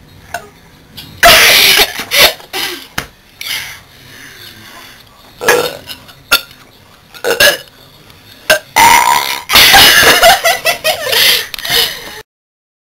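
Girls burping loudly: a long burp about a second in, several short ones, and a long drawn-out burp about nine seconds in. The sound cuts off suddenly near the end.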